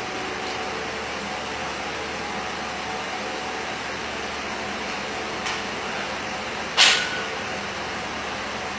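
Metal weight plates clanking as a barbell is loaded: a faint click about five and a half seconds in, then one sharp ringing clank about a second later, over a steady background hum.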